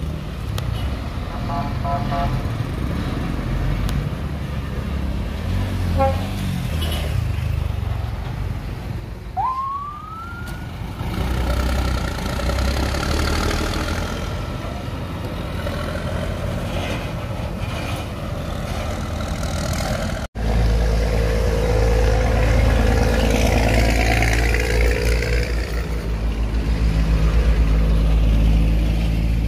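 Scania heavy-haul truck diesel engines running as the trucks manoeuvre, with one short rising siren tone about ten seconds in. After a sudden cut, a steadier, louder low engine drone as the rig drives on.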